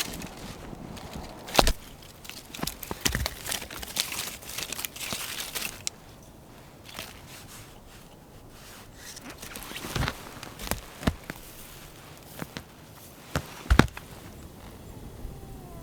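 Rustling and crunching of someone moving about in the snow, handling clothing and gear. It is dense for the first six seconds, then quieter, with a few sharp knocks near the ten- and fourteen-second marks.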